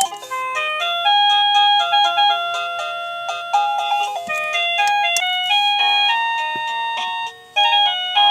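Liztek wireless doorbell receiver playing one of its preset electronic chime melodies as a quick run of beeping synthesised notes; about seven seconds in it breaks off briefly and the next tune starts.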